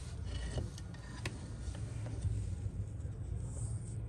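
Steady low background rumble with a few faint, light ticks, the sharpest about a second and a quarter in.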